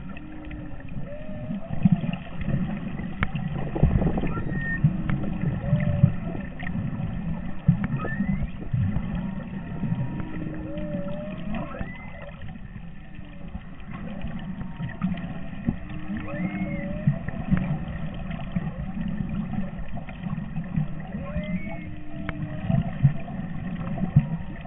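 Humpback whale song heard underwater: short held low notes and swooping calls that rise and fall, in a phrase that repeats about every five or six seconds. Under it runs a louder, constant low rumbling noise.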